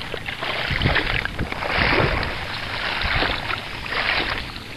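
Water sloshing and splashing as someone wades through shallow, grassy water, swelling with each step about once a second.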